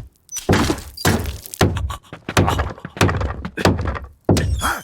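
A rapid run of heavy cartoon thuds and knocks, about three a second, some with a cracking, breaking edge.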